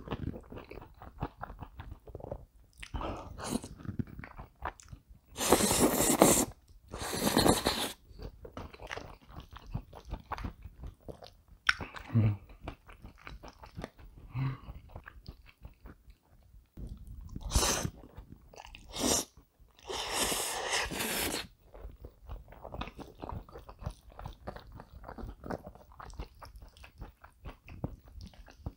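Close-miked eating of cream buldak spaghetti: steady wet chewing with small clicks, broken by a few loud noodle slurps, the longest about a fifth of the way in and again about two-thirds in.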